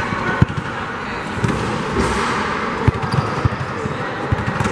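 A basketball bouncing on a gym floor: a few scattered, irregularly spaced thuds over the steady background noise of a large hall.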